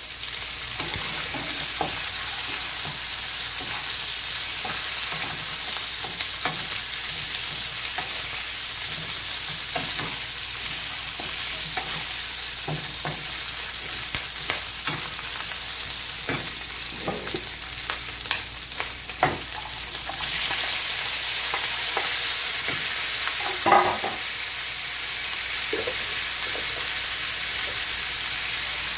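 Food sizzling in hot oil in a nonstick frying pan while a wooden spatula stirs it, scraping and tapping against the pan. The sizzle grows louder about two-thirds of the way through, and there is one sharper clatter near the end.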